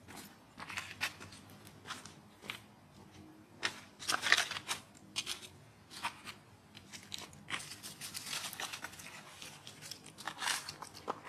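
Irregular crackling and rustling of dry leaf litter, in scattered short crackles with a louder cluster about four seconds in and a longer stretch of rustling a few seconds later.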